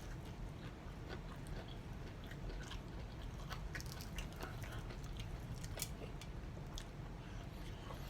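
A person chewing and biting into chicken wings close to the microphone: irregular small wet clicks and smacks, over a faint steady low hum.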